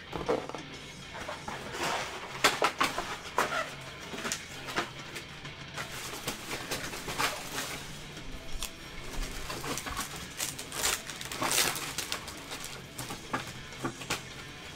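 Trading-card packs being opened and cards handled: uneven crinkling and rustling of foil pack wrappers with sharp little clicks and snaps.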